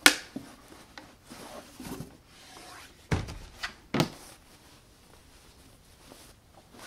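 Unboxing handling noise: a sharp knock as the shoe box is handled, then rustling of a cotton dust bag being lifted out and its drawstring pulled open, with a few more knocks about three to four seconds in.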